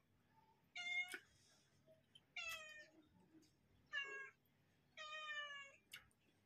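Domestic cat meowing four times, the meows about a second apart and the last one the longest.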